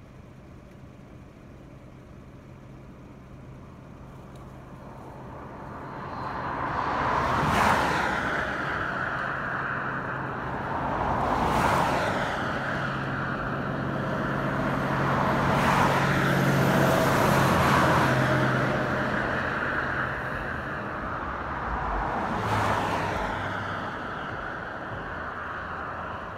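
Road traffic: several vehicles pass one after another on a highway, each swelling and fading over a few seconds, the passes starting about a quarter of the way in. A low steady engine hum runs underneath.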